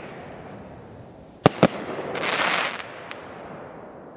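500-gram consumer firework repeater cake firing: two sharp bangs about a second and a half in, then a dense burst of crackling lasting under a second, and one last small pop.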